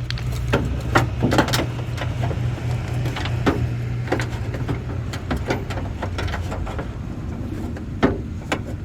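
Irregular clicks and knocks of parts and tools being worked inside an opened car door, around the door lock actuator and its latch rods, over a steady low hum.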